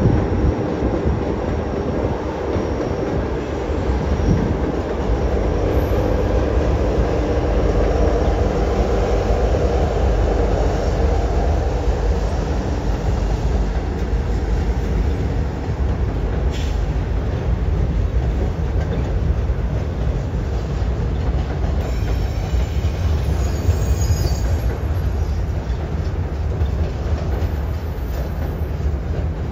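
Double-stack intermodal freight train rolling across a steel truss bridge: the diesel locomotives hum past at first, then the continuous rumble and clatter of the stack cars' wheels on the rails. Faint wheel squeal comes in briefly about three quarters of the way through.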